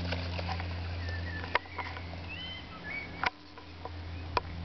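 Small DC gear motors of an Arduino robot car running with a steady low hum, broken by a few sharp clicks. Thin bird chirps come in over the middle of it.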